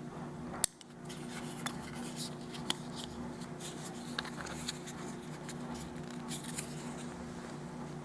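Scattered small clicks and light rustles of hands handling a small plastic remote control and its packaging, with one sharp click about half a second in, over a steady low hum.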